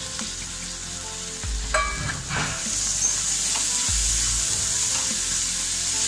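Chopped vegetables and freshly added tomatoes sizzling in hot oil in a kadhai, stirred with a wooden spatula, with a steady high hiss. A light clink comes a little under two seconds in, and there are low knocks of the pan being worked.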